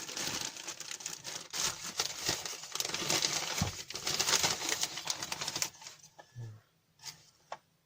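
Packing material crinkling and rustling as it is handled, for about six seconds, followed by a few light clicks of small hard parts.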